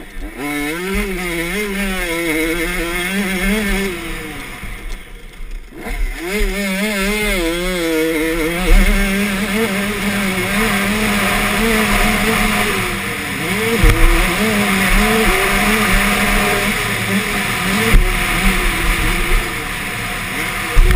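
Two-stroke KTM 85 motocross bike engine at race pace, revving up and down through the corners and straights. The throttle is chopped about four to five seconds in, then the engine holds higher, steadier revs, with another brief let-off about two thirds of the way through.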